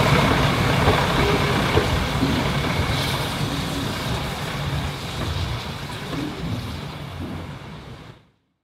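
Two-car heritage diesel multiple unit pulling away: its diesel engines and wheels on the rails fade steadily as it draws off. The sound cuts off abruptly near the end.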